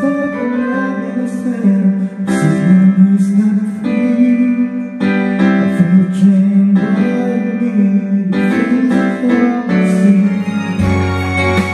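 Karaoke song played by an HDT Premier-98Pro (n) karaoke player: a slow song with a lead melody over instrumental accompaniment.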